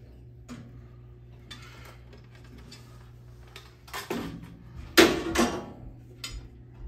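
A few sharp knocks and clatters of a hard plastic ski boot and a bandsaw's blade guide being handled on the saw's metal table, the loudest about five seconds in, over a low steady hum.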